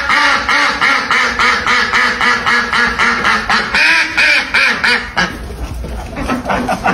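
Domestic ducks quacking, a fast, even run of calls about four a second. After about five seconds it breaks into more scattered quacks.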